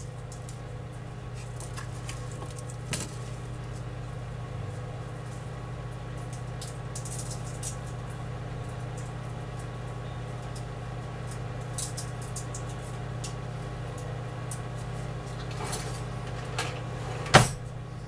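Metal utensils clinking and rattling as someone rummages through an overflowing kitchen utensil drawer, with a sharp clack near the end. A steady low hum runs underneath.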